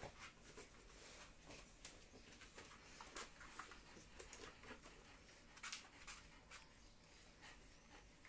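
Faint, scattered light taps and scuffles of Scottish terrier puppies' paws and claws on a hard wood-effect floor as they move about and play, over near-silent room tone.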